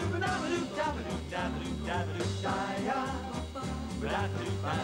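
Up-tempo swing music with a steady, stepping bass line and melody lines over it, in the instrumental stretch between sung verses.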